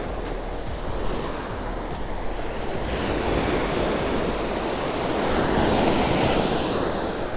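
Ocean surf breaking and washing up a sandy beach, swelling louder about five to six seconds in, with wind on the microphone.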